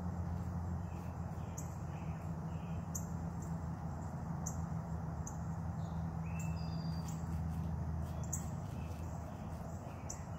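Birds chirping, with short high calls repeating about every second and a half, over a steady low hum.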